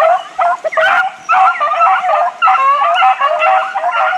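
A pack of deer-hunting hounds baying in chorus: many overlapping yelps and drawn-out howls with no pause, the cry of dogs running on a deer's track.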